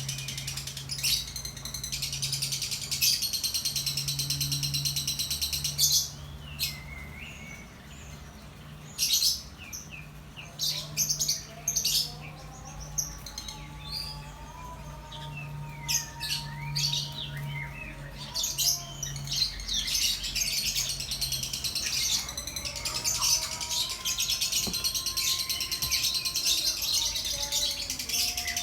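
Lovebird singing: long runs of rapid, high-pitched chattering trills, broken into short separate bursts through the middle and running on unbroken again near the end.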